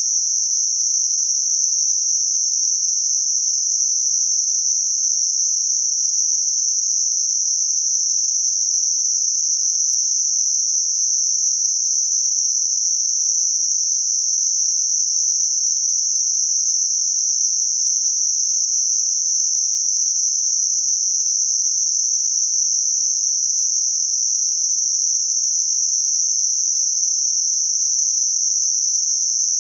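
Synthetic 6 kHz Gaussian narrowband noise: a steady, unbroken high-pitched hiss. It is made for masking high-frequency tinnitus.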